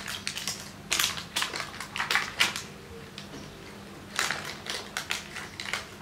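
Clear plastic bag around a siren speaker crinkling and rustling as it is handled, in short bursts of crackle with a lull in the middle.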